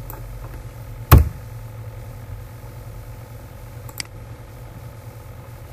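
Steady low hum under clicks from the computer's keyboard and mouse. A loud, sharp knock comes about a second in and a lighter click near four seconds.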